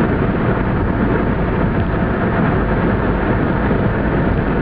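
Steady road and engine noise of a car driving at highway speed, an even rush of tyres and wind.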